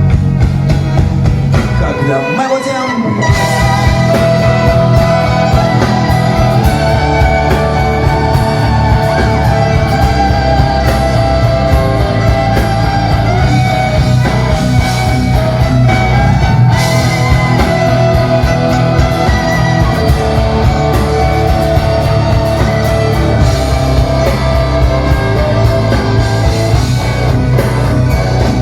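Rock band playing, with guitar over a steady bass and drums; the bass drops out briefly about two seconds in.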